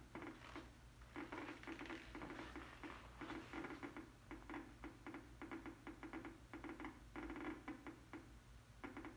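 Geiger counter clicking rapidly and irregularly, several clicks a second. Each click is one decay detected from a strontium-90 source 6 cm from the Geiger tube.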